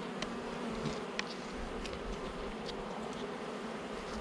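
Honeybees buzzing steadily around an open hive, with a few faint light clicks.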